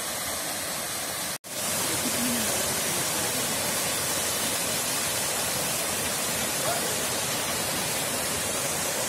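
Steady rush of a multi-tiered waterfall cascading over rock in a wooded gorge. The sound cuts out for an instant about a second and a half in.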